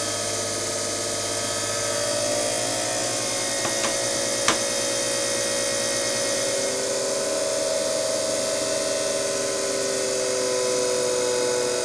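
Cylinder shaving machine running, its knife biting into a spinning blank recording cylinder and shaving off the rough cast surface. A steady whine that drifts slowly in pitch, with a sharp click about four and a half seconds in.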